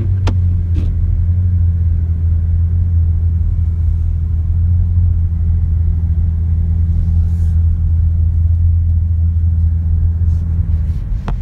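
Steady low drone of a car's engine and tyres heard from inside the cabin while driving on a snow-covered road, with a couple of faint clicks just after the start and a sharper click near the end.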